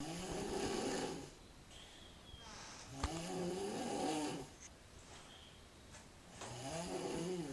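A sleeping girl snoring: three long, pitched snores about three seconds apart, with quieter breaths between them that carry a faint high whistle. A small sharp click comes just as the second snore begins.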